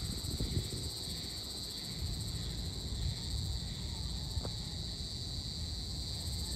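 Evening chorus of insects: a steady, high-pitched shrill that holds without a break, over a low background rumble.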